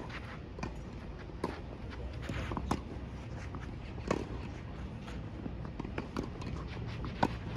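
Tennis rally: rackets striking the ball back and forth, with the ball bouncing on the hard court and players' footsteps between shots. The sharpest hits come about four and seven seconds in.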